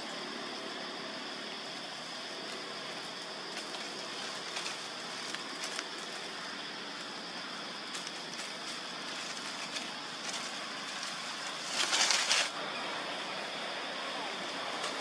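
Steady outdoor background hiss with small scattered rustles and clicks of dry leaves as macaques move over the forest floor, and one louder burst of rustling, about half a second long, around twelve seconds in.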